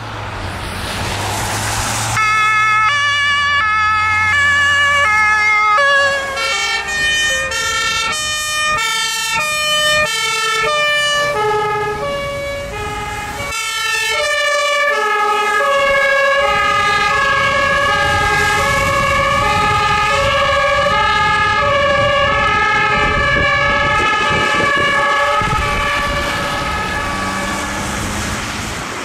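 Fire-service two-tone sirens (German Martinshorn) sounding, jumping back and forth between a high and a low note. Two sirens overlap out of step for about the first half, then one carries on alone. In the opening two seconds, before the sirens start, a vehicle passes with a low engine hum and tyre noise on a wet road.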